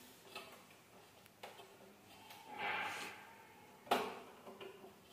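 Faint scattered clicks and knocks of metal hardware as a pull-out bottle basket is fitted into a kitchen cabinet, with a short scraping sound a little before three seconds in and a sharper knock just before four seconds.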